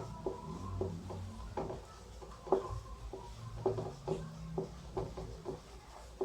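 Someone writing by hand: an irregular series of short scratches and taps of the writing tool on the writing surface.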